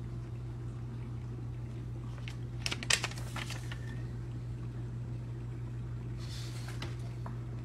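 Steady low room hum, with a quick cluster of sharp clicks about three seconds in and a brief soft rustle near the end.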